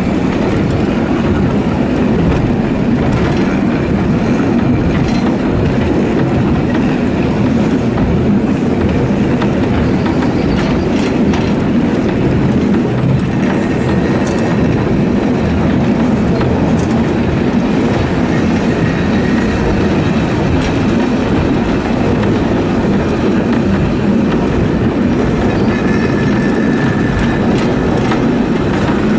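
Car of the water-balanced Lynton & Lynmouth cliff railway funicular running along its steep track: a steady rumble of wheels on rails, with faint high squeals about halfway and near the end.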